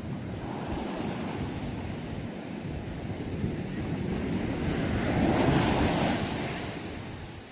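Ocean waves breaking and washing on the shore as a steady rush, with one wave swelling to its loudest a little past the middle and then fading away.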